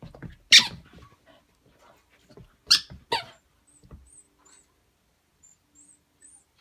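Shiba Inu giving three short, sharp barks: one about half a second in and a quick pair near the three-second mark.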